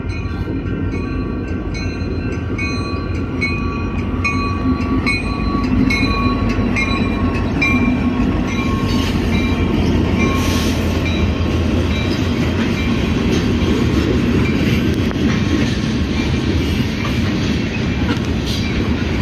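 Union Pacific diesel freight train passing close by: a low rumble of the locomotives and freight cars on the rails that grows louder about six seconds in as the locomotives come alongside. A regular metallic ringing, about two strokes a second, sounds over it in the first half and then fades.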